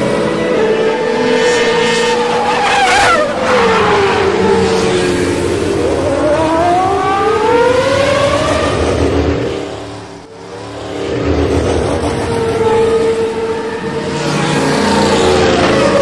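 High-revving race-car engine with a strong, steady whine. Its pitch drops steeply about three seconds in, like a car passing by, then climbs again as it revs up. The sound dips briefly about ten seconds in and then builds back up.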